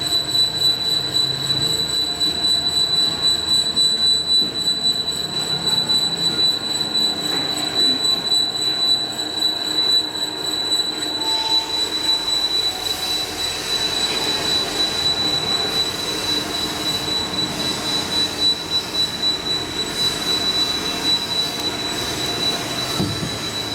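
Machinery running with a steady high-pitched whine over a fluctuating mechanical rattle and hiss.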